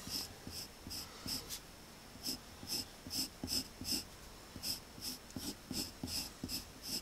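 Pencil scratching across paper in short repeated strokes, about two or three a second, with a couple of brief pauses, as a light construction circle is sketched.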